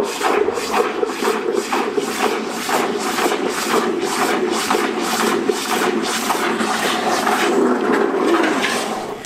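Red-hot forged steel hammer head being quenched in a drum of salt water with washing-up liquid: the water boils and hisses against the hot steel and churns with a pulse about three times a second as the head is worked in the tongs, fading near the end. This is the hardening quench of the heat treatment.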